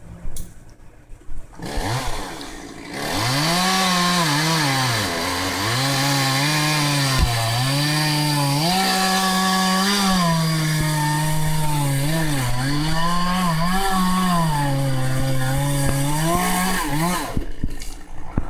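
Gas chainsaw revving up and cutting through pine wood, its engine pitch dropping and recovering again and again as the chain bites into the cut under load. It stops shortly before the end.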